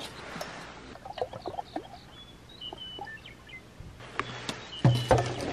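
Light clicks and knocks of camp cookware being handled while water is set on to heat, with a few short bird chirps in the background and a louder clatter near the end.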